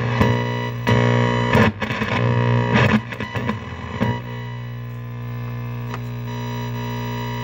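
A 1949 Philco 50T-1403 tube television giving a steady, harsh electrical buzz, with several louder, rougher surges in the first four seconds before it settles back to the even buzz.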